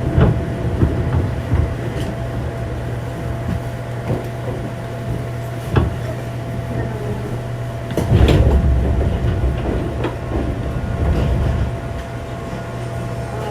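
Running sound inside a JR 205-series electric multiple unit motor car (inner-fan traction motors): a steady low hum with a thin steady whine above it, broken by occasional sharp knocks and a heavier clatter of car body and running gear about eight seconds in.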